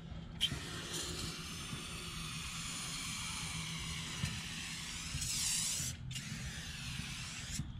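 Aerosol spray can hissing as it sprays a trailer wheel: one long spray of about five seconds, a brief pause, then a shorter second spray.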